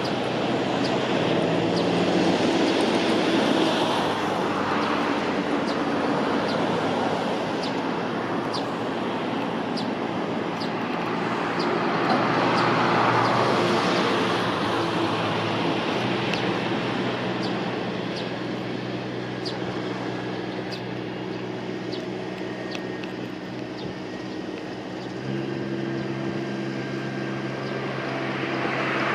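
Kubota rice transplanter's engine running steadily while it plants, mixed with cars passing on a road as recurring swells of traffic noise. A faint high tick repeats about once a second.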